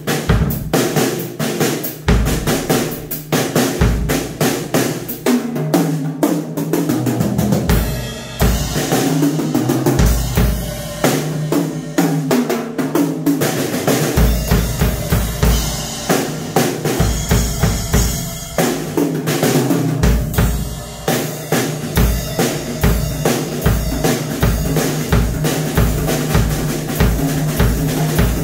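Ludwig drum kit being played: snare, toms and cymbals struck in a busy beat, with the bass drum kicking harder and more regularly from about halfway through.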